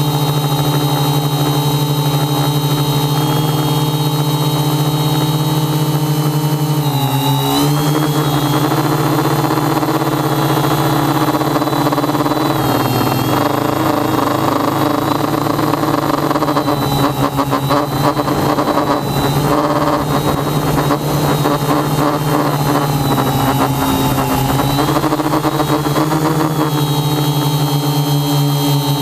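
Quadcopter's electric motors and propellers whining steadily, heard close from the craft's onboard camera. The pitch dips and shifts with throttle changes, and the sound turns rougher and fluttering through the middle.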